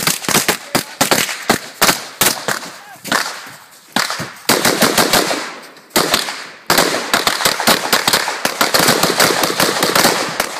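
Gunfire from several shooters: many shots in quick, overlapping volleys, each trailed by a short echo, with brief lulls about three and six seconds in.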